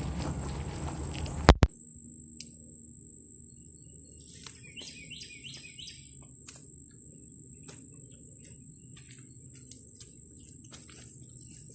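A rustling noise that ends in two sharp, loud clicks about a second and a half in, then a quiet stretch in which a bird calls a quick run of four short falling chirps about five seconds in. A faint steady high-pitched whine runs underneath, with a few soft clicks.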